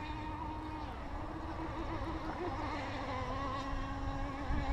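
A steady motor hum with a slightly wavering pitch over a low rumble, with a brief low bump near the end.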